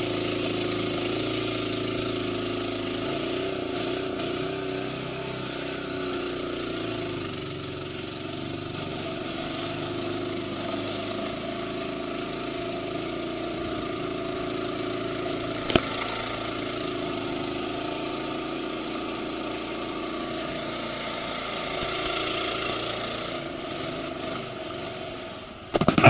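A steady mechanical hum, like a small engine or motor running, with a single sharp click about sixteen seconds in.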